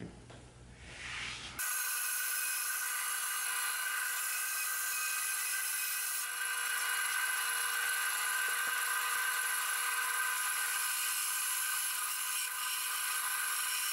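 Band saw running and cutting a wooden block: a loud, steady whine with the rasp of the blade in the wood. It starts abruptly about a second and a half in, after a quiet stretch of faint pencil scratching on the wood.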